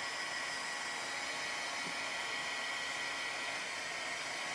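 Handheld blow dryer running steadily, a rush of air with a thin steady whine, drying freshly applied ink on a fabric apron.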